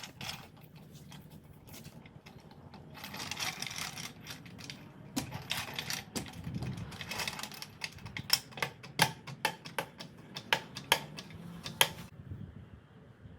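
A car jack being set and worked to lift a minivan, with scraping and clattering, then a run of sharp metal clicks near the end.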